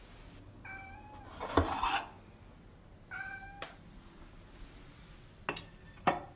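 A cat meowing twice, short even-pitched calls, among sharp clinks and knocks of a metal food bowl being handled and set down. The loudest clink comes between the two meows.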